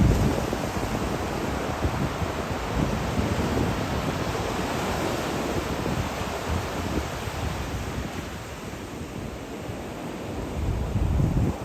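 Sea waves washing onto the shore, with wind gusting over the microphone in low rumbles, strongest at the start and again near the end.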